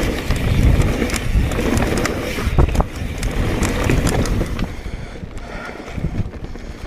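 Mountain bike rolling fast over a dirt trail: a rough low rumble of tyres and wind on the microphone, with many sharp rattling clicks from the bike. The rattle thins out and the sound gets quieter about five seconds in.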